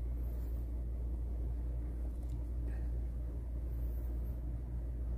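Steady low hum of indoor background noise, with a couple of faint ticks a little past the middle.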